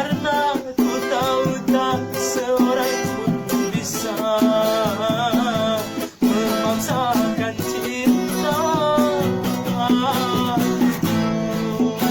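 Acoustic music led by a plucked guitar, with a wavering melody line over it and a brief pause about six seconds in.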